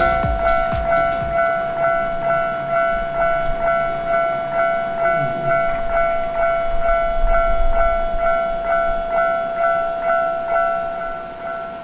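Japanese railway crossing's warning bell ringing with an even clang of about two and a half strikes a second. A train's wheels clatter over the rails in the first second or so, and a low rumble follows in the middle.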